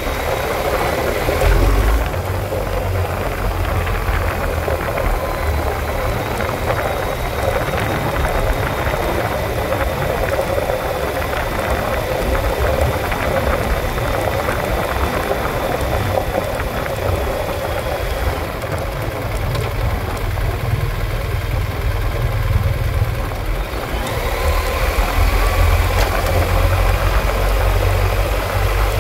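Motorcycle engine running steadily while the bike rides a loose gravel track, with tyre noise from the gravel.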